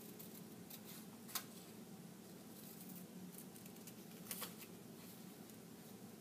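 Scissors snipping through paper, cutting out a drawn figure: faint scattered snips, with a sharper one about a second and a half in and two close together near the end.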